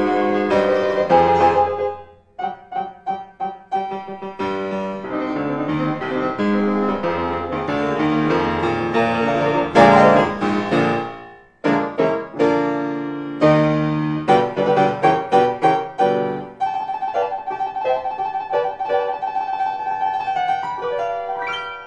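Piano accompaniment to a silent comedy, lively and changing, with short choppy chords and runs. Near the end it holds a rapid repeated high note like a trill.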